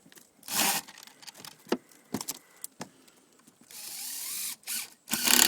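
Cordless power drill driving fasteners through a stone-coated steel ridge cap in short bursts, the longest and loudest near the end, with a few sharp metal clicks and taps between.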